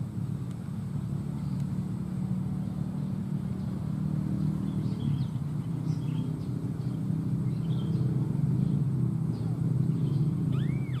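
A steady low motor drone, growing a little louder toward the end, with a few faint high bird chirps over it.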